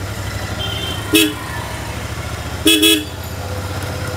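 Royal Enfield Interceptor 650's parallel-twin engine running steadily, with the horn sounded: one short beep about a second in, then two quick beeps just before three seconds.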